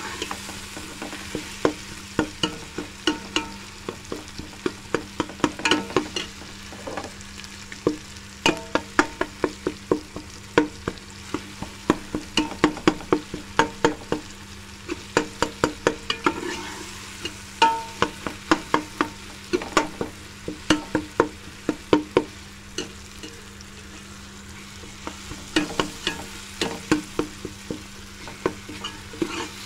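Metal spoon scraping and knocking against a pressure cooker as minced meat frying in oil is stirred. The strokes come in quick runs with short pauses, over a steady sizzle.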